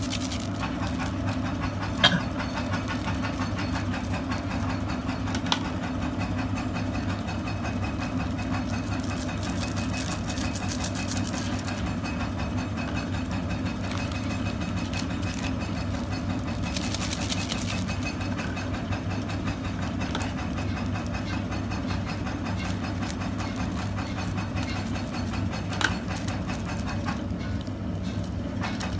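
Stainless electric kettle heating water toward the boil, a steady hum and rumble. A few sharp clicks from scissors snipping open the noodle seasoning sachets.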